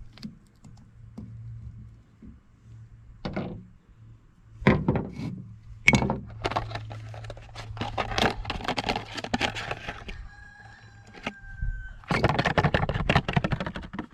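Small parts and caps being handled and fitted by hand: a run of clicks and knocks, thickest in the second half, over a low steady hum. A short thin squeak comes about ten seconds in.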